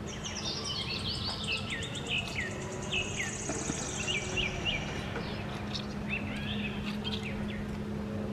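Birds chirping outdoors: many quick downward-sliding chirps, with a fast high trill in the first half. A steady low hum runs underneath.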